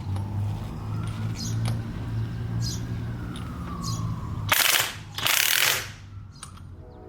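Power tool running, then two short, loud bursts of rapid hammering about halfway through, as an impact wrench makes when it runs lug nuts on a wheel.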